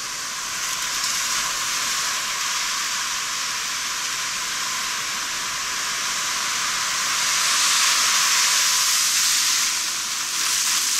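Sea surf washing up the beach, a steady hiss that swells from about seven seconds in as a wave rushes in, then eases.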